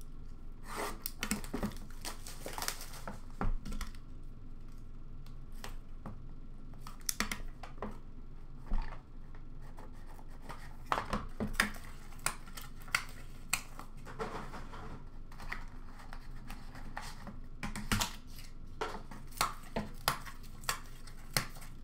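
Hands opening a sealed box of hockey trading cards: irregular rustling and tearing of cardboard and wrapping, with scattered sharp clicks and taps that come more often in the second half.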